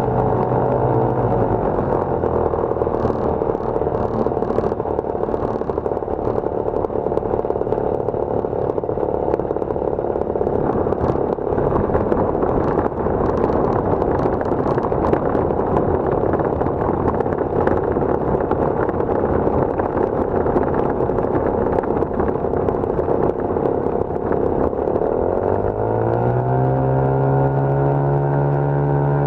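Lazair ultralight's twin two-stroke engines running. About a second in they are throttled back to a lower, rougher running, and from about 25 seconds they climb back up in pitch as power is added again.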